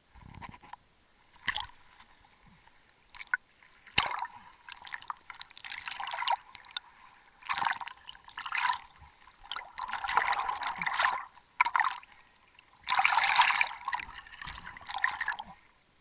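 Water splashing and sloshing around a camera bobbing in and out of shallow, rippled water, in irregular bursts with the loudest stretch near the end.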